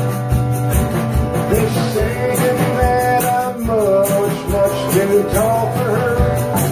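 Live band playing a rock song: strummed acoustic guitars and an electric guitar over a steady low beat, with a man singing from about a second and a half in.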